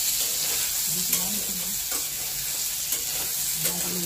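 Soya chunks frying in a little oil in a metal kadai, sizzling steadily while a flat metal spatula stirs and scrapes them around the pan, with a few light clicks of the spatula on the metal.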